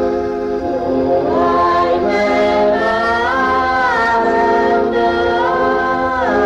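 Music with singing voices holding long notes that slide smoothly from one pitch to the next.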